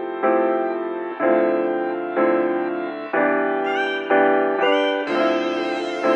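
Background music: a piano or keyboard playing chords struck about once a second, each fading before the next, with a shimmering warbling layer joining near the end.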